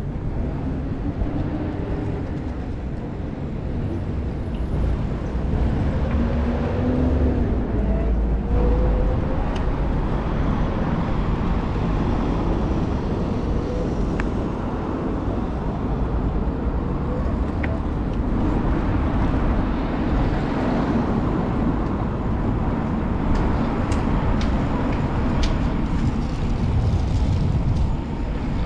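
City-centre road traffic heard from a moving bicycle: steady street noise with a low rumble and passing vehicles, one engine note rising and falling in the first ten seconds, and a few faint clicks later on.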